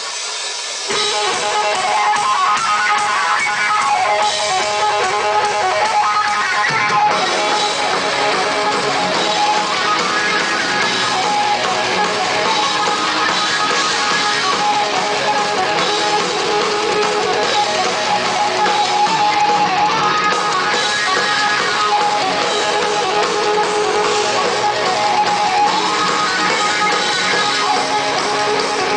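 Heavy metal band playing live, led by electric guitar; the music starts about a second in and grows fuller in the low end a few seconds later.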